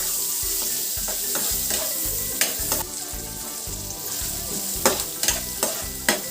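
Garlic and onion sizzling as they sauté in hot oil in a pan. They are stirred with a utensil that knocks sharply against the pan several times, mostly in the second half.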